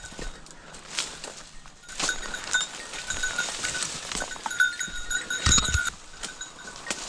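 A small bell jangling on and off with a clear high ring, over the crackle and swish of branches and twigs being pushed through in dense scrub.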